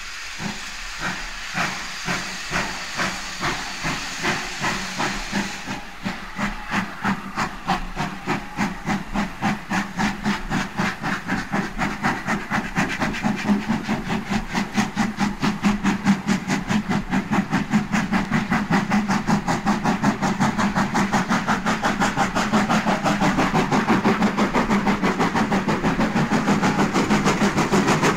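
Southern Region steam locomotives, an 'N' class 2-6-0 and a 'West Country' Pacific, starting a heavy express from a standing start up a steep 1 in 37 climb. Their exhaust beats come about twice a second at first and quicken steadily as the train gathers speed, growing louder, with steam hiss throughout.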